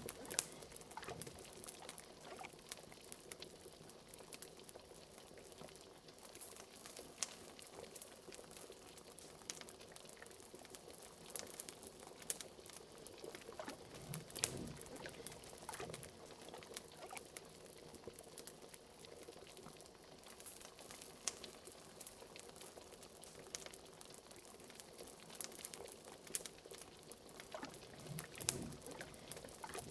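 Liquid bubbling in a pot at a steady boil, with many small pops and crackles from a fire, and a deeper gurgle about halfway through and again near the end.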